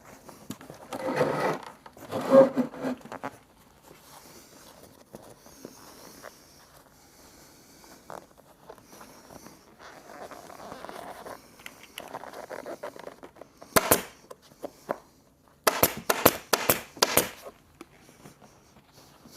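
Upholstery fabric and the sofa seat being handled and worked into place: two louder bursts of rustling and knocking near the start, then quiet scraping and rubbing, and near the end a single sharp click followed by a quick run of about six sharp clicks.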